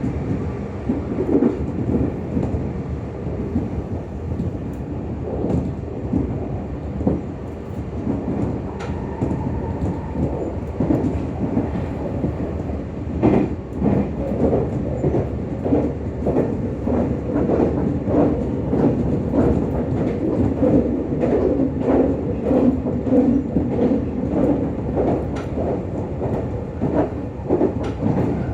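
Meitetsu 6000 series electric train running, heard from inside the car: a steady running rumble with the wheels clicking over rail joints, the clicks coming thicker in the second half.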